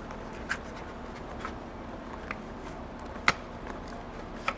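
Scattered light clicks and taps of small plastic parts being handled and set down, about five in all, the sharpest a little past three seconds in, over a steady low background hum.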